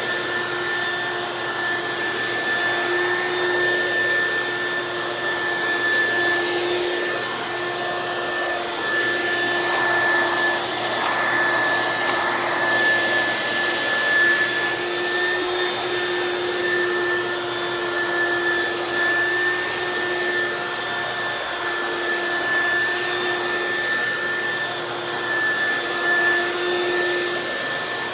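Hoover Quik Broom S2541 suction-only stick vacuum running steadily over a low-pile area rug: a steady motor whine over a rushing hiss of air, with a little more hiss for a few seconds near the middle.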